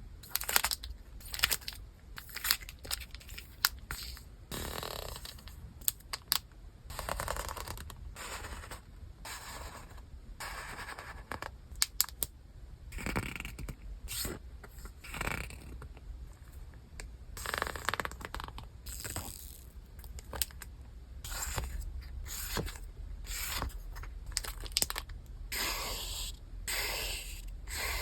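Paper and plastic stationery packaging being handled and unwrapped: scraping and rustling with many sharp clicks and taps.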